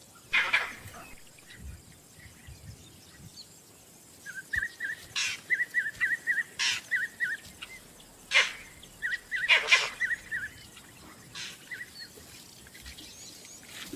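Vervet monkey alarm calls: about six loud, sharp calls spaced a second or more apart, warning of an approaching predator. Between them come quick runs of short high chirps.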